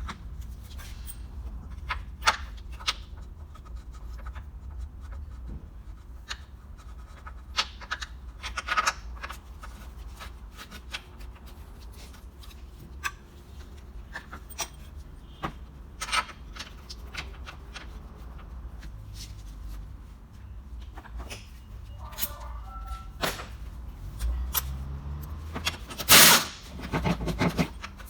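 Scattered clicks and knocks of hand tools and parts being handled during truck repair work, over a low steady rumble, with a louder, longer rattling noise near the end.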